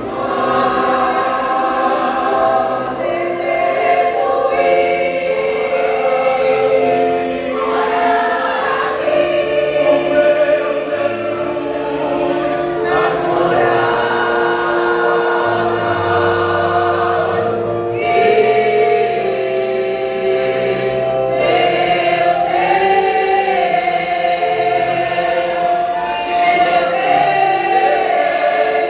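Church vocal group singing a gospel song in harmony, several voices holding long notes together.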